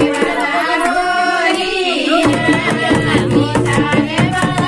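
Singing with drum accompaniment: a voice carries a melody over a quick, steady hand-drum beat. The deep bass drops out for about the first two seconds and then comes back.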